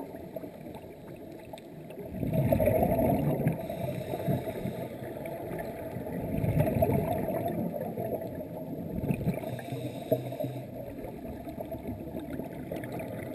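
Scuba diver's exhaled bubbles from the regulator, heard underwater as gurgling bursts: a loud one about two seconds in and another about six seconds in, with a low murmur between breaths.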